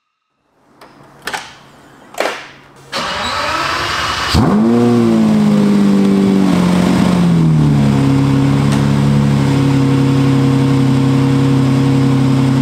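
A rear-engined sports car being started: two sharp clicks, a brief crank, then the engine catches about four seconds in, flares its revs and settles over a few seconds into a loud, steady idle.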